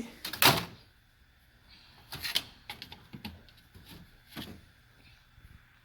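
Handling noise from salvaged circuit boards being picked through: a loud scrape or knock about half a second in, then a few lighter clicks and taps.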